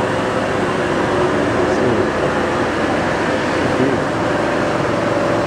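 Steady din of foam-cutting machinery running in a factory hall: a dense, even noise with a faint wavering hum.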